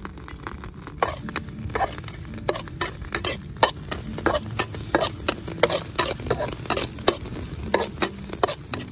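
Metal spatula repeatedly scraping and tapping against a steel wok, starting about a second in, as chopped garlic and red chillies are stirred and sizzle in hot oil.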